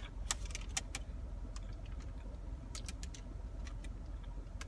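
Scattered light crinkles and clicks from a food wrapper being handled and from eating, over the low steady hum of a car's running heater and engine.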